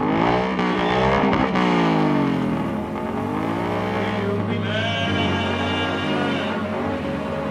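Triumph Scrambler's parallel-twin engine revving hard, its pitch sweeping up and down several times, over background music.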